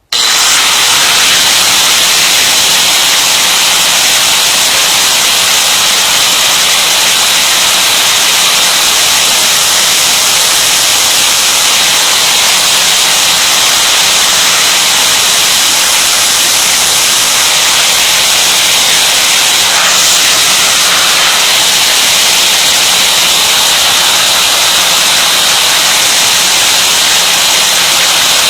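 Electric grinder grinding a drill bit to resharpen it: a loud, steady hiss that starts suddenly and holds without a break.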